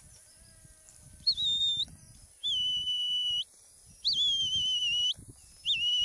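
Four high whistled notes, each opening with a quick upward flick and then held steady for half a second to a second, with soft low rustling beneath.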